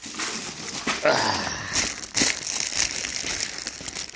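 Plastic wrap crinkling and crackling irregularly as it is pulled off a boxed connector kit by hand.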